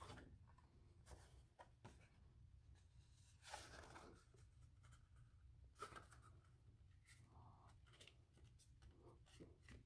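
Near silence with faint rustles of a sheet of card cover stock being folded along its score line and the crease pressed, two slightly louder ones midway.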